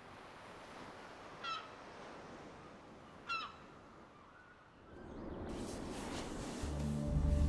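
Two short, harsh crow caws, about a second and a half in and again near the middle, over a faint hiss of ambience. Then a swell of noise builds, and low sustained music tones come in near the end.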